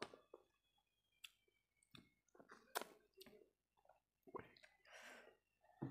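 Faint chewing and mouth clicks of a person eating rice with coriander-leaf chutney by hand, in short scattered bursts.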